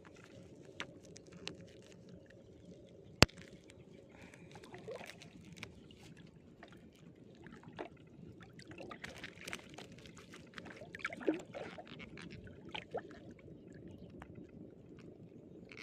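Water sloshing and small splashes as a gill net is worked in the water, with scattered light clicks and one sharp click about three seconds in.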